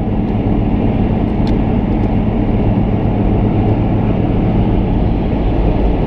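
Steady road and engine noise heard from inside a car's cabin while cruising at highway speed.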